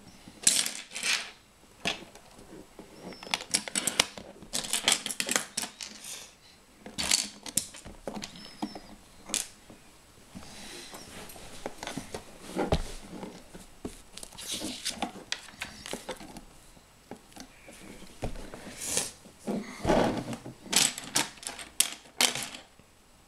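Plastic LEGO bricks clicking and clattering as pieces are picked from a loose pile and pressed onto a base plate, in irregular clusters of small clicks.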